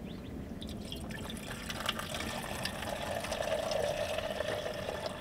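Water poured from a plastic gallon jug into a small metal camp pot, a splashing stream starting about a second in and running steadily, with a hollow note from the pot as it fills.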